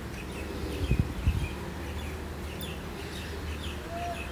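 Small birds chirping in short, scattered calls over a steady low rumble, with two dull bumps about a second in.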